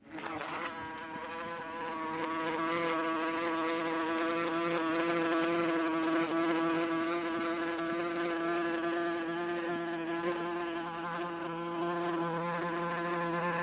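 A wasp buzzing in flight close to the microphone: one steady, fairly low buzz with many overtones, its pitch wavering only slightly.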